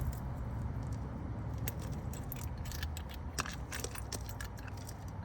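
Steel lug nuts clinking as they are handled and started onto the wheel studs by hand: a scattered run of light metallic clicks over a steady low background rumble.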